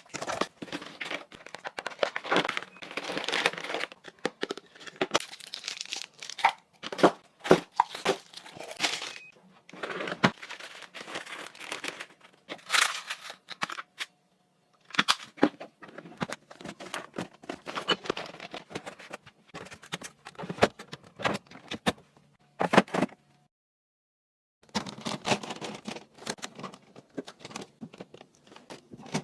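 Crinkling and rustling, like packaging or bags being handled, mixed with irregular sharp clicks and light knocks of items being moved about. Sound drops out abruptly twice, about halfway and again toward the end.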